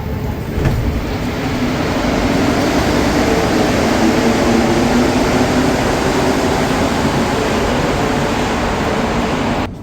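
Interior noise of a Montreal metro train (rubber-tyred) running between stations, a steady rumble and hum that grows louder over the first few seconds and cuts off abruptly near the end.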